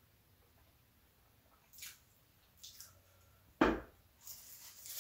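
Two soft squelches of sauce sliding from a small ceramic bowl onto a foil-wrapped gyro, then one sharp thump as the bowl is set down on a wooden cutting board. After that comes the crinkling of aluminium foil as the wrapped gyro is handled.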